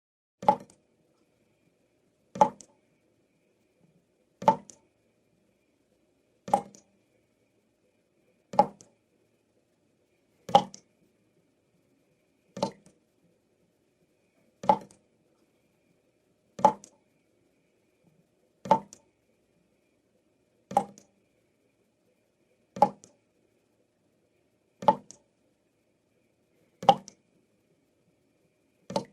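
Water dripping from a tap, one drop at a time: a short plop about every two seconds, evenly spaced.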